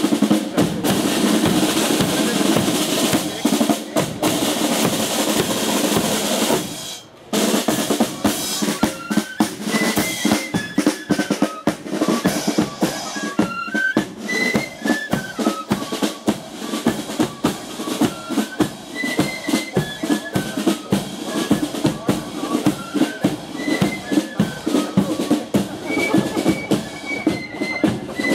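Marching flute band playing: snare drums and bass drum beat out a dense rolling rhythm, and after a short break about seven seconds in, the flutes take up a high melody over the drums.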